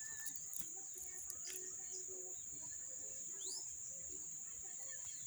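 Outdoor ambience: a steady high-pitched insect drone, with faint scattered bird chirps and one short rising bird whistle about three and a half seconds in.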